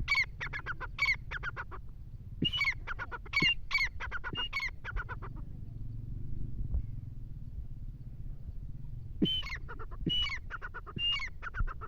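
A teetar (francolin) calling in three bursts of rapid, harsh repeated notes, with a pause of several seconds before the last burst.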